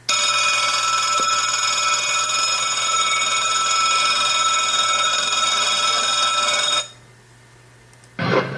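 Electric bell ringing continuously for nearly seven seconds, a railway bell sound effect played over loudspeakers, then cutting off suddenly. Near the end a loud sound starts abruptly, its tones rising in pitch.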